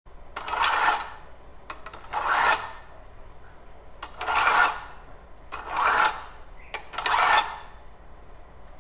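A chef's knife drawn repeatedly through a countertop pull-through knife sharpener: five rasping strokes of metal on the sharpening slot, about one every second and a half, with light clicks between them.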